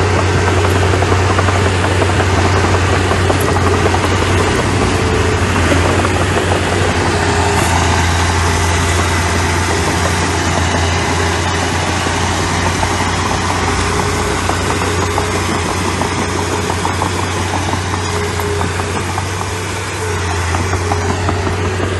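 Diesel engine of a small earthmoving machine, a mini bulldozer or mini dump truck, running steadily with a low drone and mechanical clatter, dipping briefly near the end.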